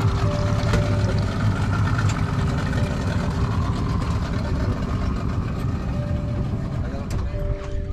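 A fishing boat's engine running steadily, easing off slightly near the end.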